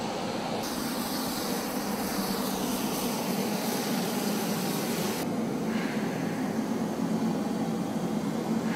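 Aircraft engine noise on a flight line: a steady drone with a constant low hum. The sound shifts abruptly twice, a high hiss coming in about half a second in and dropping away about five seconds in.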